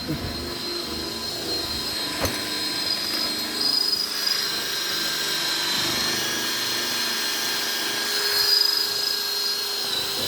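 Cordless drill boring a half-inch hole through steel, running steadily under load with a high whine. A sharp click about two seconds in.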